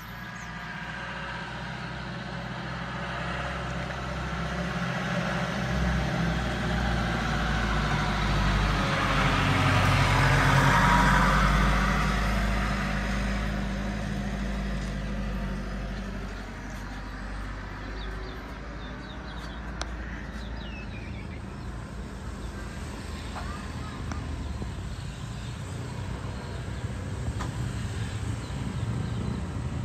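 A truck passing on the road, its engine noise swelling to its loudest about ten seconds in and then fading away; more vehicle engine noise builds again near the end.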